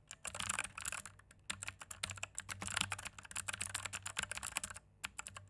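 Typing on an Aula F3287 wired mechanical keyboard: rapid runs of key clicks, with short lulls about a second in and near the end.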